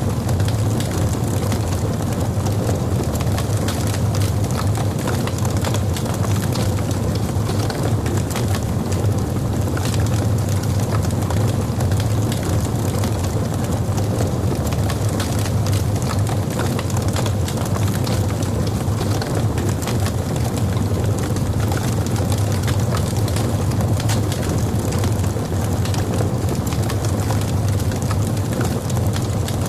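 Wood logs burning in a fireplace: a steady low rumble of flame with frequent small crackles and pops throughout.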